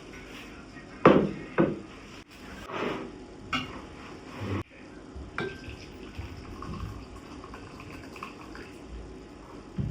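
Dishes being washed at a sink: a string of separate knocks and clinks of crockery and pans, one ringing briefly, with water in the background.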